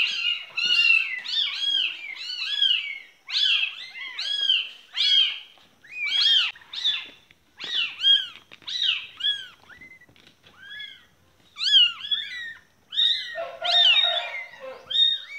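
Young kittens mewing: short, high-pitched mews, two or three a second and at times overlapping, with a brief lull about ten seconds in.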